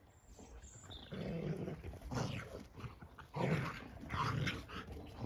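Two dogs, a German Shepherd and a black dog, play-fighting, with rough play growls in about four short bursts from about a second in.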